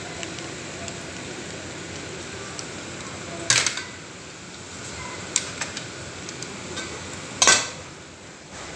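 Egg-and-cornstarch-coated potato fries deep-frying in hot oil in a wok, a steady sizzle of bubbling oil. Three sharp clicks cut through it, the loudest about three and a half and seven and a half seconds in.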